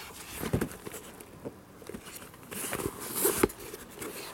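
A fabric tool bag being handled and moved about: irregular rustling of its stiff nylon cloth with light knocks and bumps, the rustle strongest about three seconds in.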